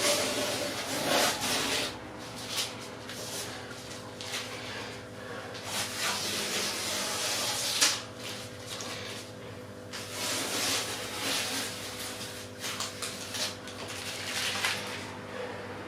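Masking tape being peeled off aquarium glass along fresh silicone seams: several drawn-out ripping hisses, one pull after another, over a faint steady hum.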